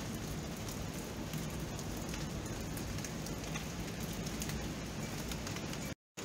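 Steady rain falling, an even hiss with scattered sharper drop ticks. The sound cuts out completely for a moment near the end.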